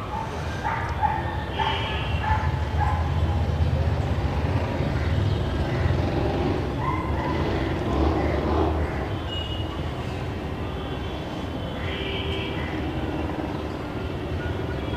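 A dog barking several times in the background over a steady low rumble. Drawn-out steady tones come in near the end.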